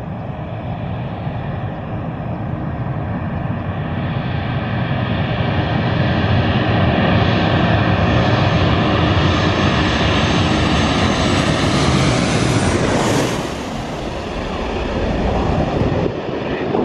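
Twin-engine jet airliner on final approach passing low overhead. Its engine noise, a rumble with a high whine of several steady tones, builds steadily and peaks about three-quarters of the way through as it goes over, then falls back to a lower rumble.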